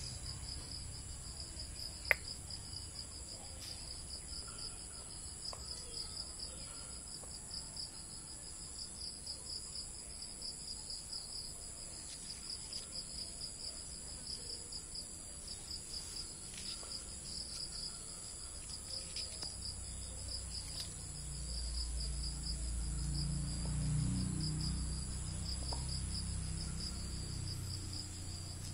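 Insects chirring steadily, a high, fast, even pulse that never lets up. A single sharp click comes about two seconds in, and a low rumble of handling noise rises in the last third as the phone is moved.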